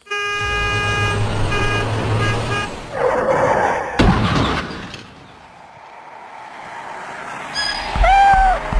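Vehicle horn honking, one long blast and then several short ones, over a low engine hum; a loud thump about four seconds in; near the end a cat meows once.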